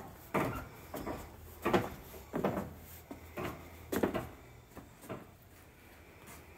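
Footsteps on a plywood loft floor, a series of dull thumps about one every 0.7 seconds that trail off and stop a little after halfway.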